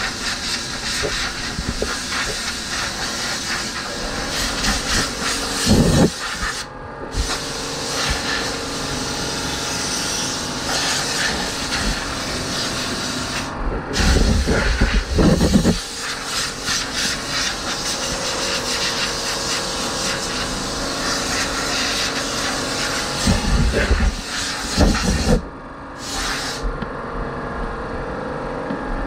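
Compressed-air blow gun hissing as it blows off surfboard-foam dust, the trigger let go briefly three times. Gusty low rumbles come now and then as the blast shifts.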